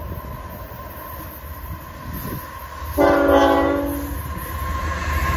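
CN diesel freight locomotives approaching, their low rumble growing louder. About three seconds in, the lead locomotive's air horn sounds one short chord blast of about a second, the loudest sound, which then fades.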